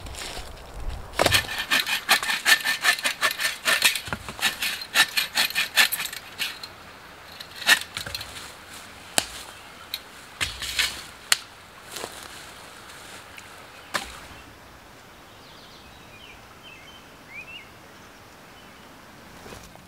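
Dry sticks and dead branches cracking and snapping as they are broken and handled: a quick, rapid run of snaps and rasps in the first few seconds, then single sharp cracks spaced a second or two apart. After the last crack it goes quieter, with a few faint bird chirps near the end.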